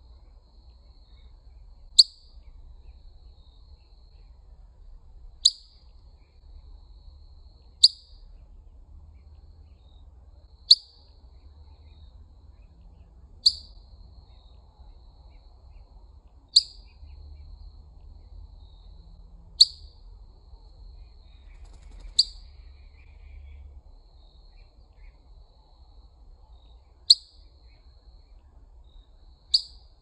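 Northern cardinal giving sharp chip calls, each a quick downward slur, one about every three seconds, ten in all. A faint, thin, high tone runs between the chips over a low, steady background rumble.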